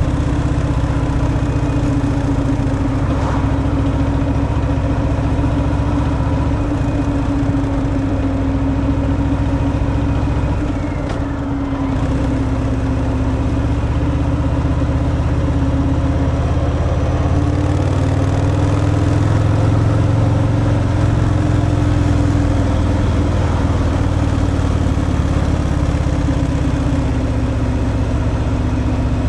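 Harley-Davidson Fat Boy's V-twin engine through its stock exhaust, running steadily under way. It dips briefly about eleven seconds in and swells slightly a little later.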